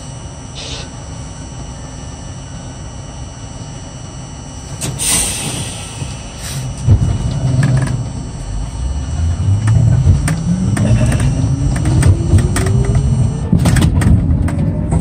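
R42 subway car: a burst of air hiss about five seconds in, then the traction motors whine, rising steadily in pitch over several seconds as the train pulls away and picks up speed, with rumbling and knocks from the running gear.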